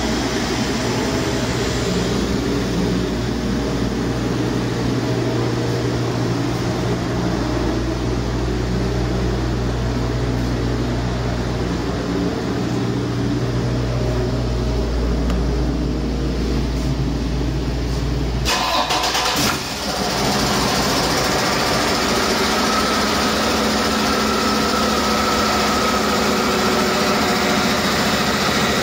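A 2016 Mack MP8 13-litre inline-six diesel engine, removed from its truck, running steadily during a test run. About two-thirds of the way through there is a brief dip, and after it the engine sounds brighter, with a faint whine over the running.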